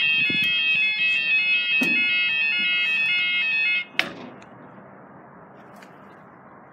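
UK level crossing audible warning alarm sounding a rapidly alternating two-tone wail while the barriers come down, cutting off suddenly about four seconds in with a sharp knock once they are lowered. After that only a faint hiss remains.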